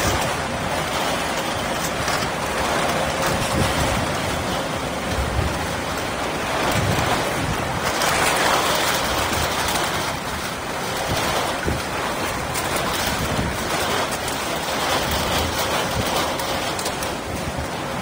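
Aluminum can baler running, with its hydraulic drive working and its belt conveyor carrying scrap cans up into the press: a steady, noisy machine drone that swells a little now and then.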